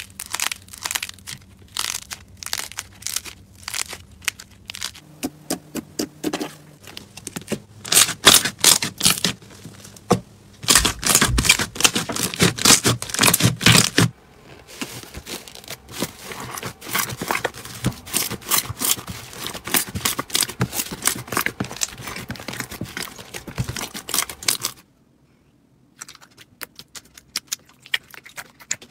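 Hands squeezing, kneading and pressing slime, giving sticky crackling, popping and clicking sounds that come fast and dense in the middle stretch, with a short break near the end before sparser pops resume.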